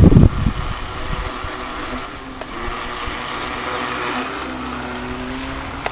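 Tornado RC 16-inch electric toy boat running fast on the water, its 9.6-volt motor giving a steady whine over the hiss of the hull and spray. Wind buffets the microphone in the first half-second.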